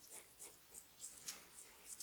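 Faint, irregular swishing and slippery rubbing of oiled hands massaging the neck and hair, a few soft strokes a second.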